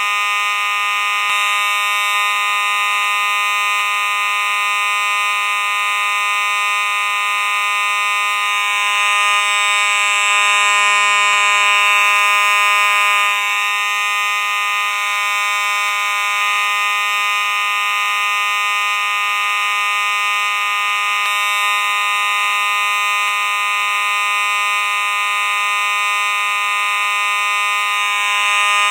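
Simplex fire alarm sounding continuously: a loud, steady tone with many overtones and no breaks.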